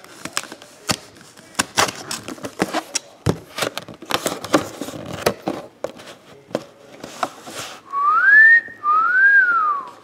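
A cardboard photograph box being opened by hand, a run of clicks and crinkles, then a person whistles two notes near the end: one gliding up, the next rising and falling, a wolf whistle.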